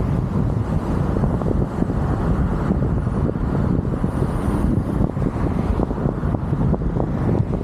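Steady low road and tyre rumble from a moving car, with wind buffeting the microphone in frequent low thumps.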